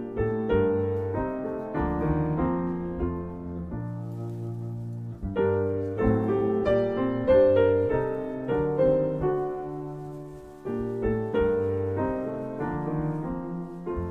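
Piano playing a slow, quiet piece: chords and melody notes struck and left to fade, with new phrases beginning about five and eleven seconds in.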